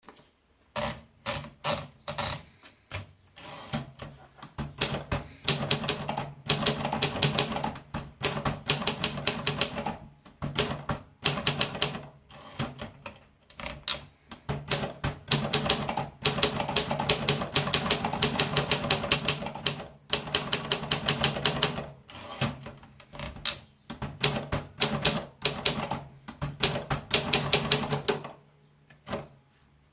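Olympia Elite typewriter being typed on: fast runs of sharp keystroke clacks in bursts of a few seconds, broken by short pauses, over a low steady hum that stops near the end.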